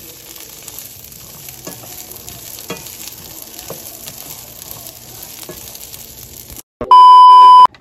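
Green beans sautéing in olive oil in a small nonstick pan: a steady sizzle, with the wooden spatula knocking lightly against the pan about once a second as they are stirred. Near the end the sizzle cuts off and a loud, steady high beep sounds for about a second.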